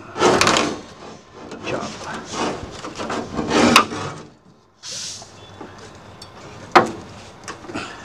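Knocking and rubbing as a removed air-conditioner evaporator coil is handled and shifted. There is a short hiss about five seconds in and one sharp knock near seven seconds.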